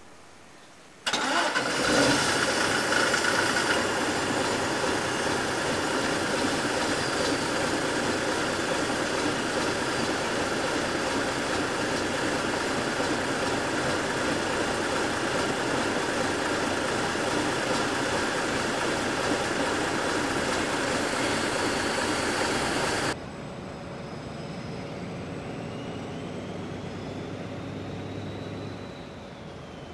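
An engine running steadily, starting about a second in and cutting off abruptly about 23 seconds in. A quieter steady hum with a faint rising and falling whine follows.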